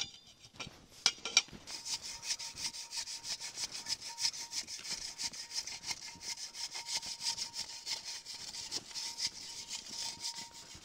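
A sharp knock right at the start, then from about two seconds in a hand saw cutting wood in quick, even back-and-forth rasping strokes, about six a second.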